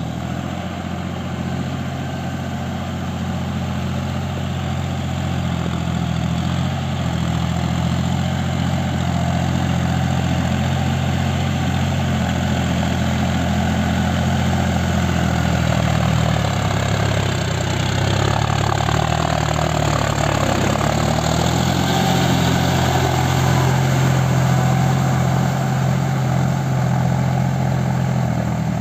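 Farm tractor's diesel engine running steadily under load as it pulls a rotavator through flooded mud. About two-thirds of the way through, the engine note sags in pitch and then picks back up.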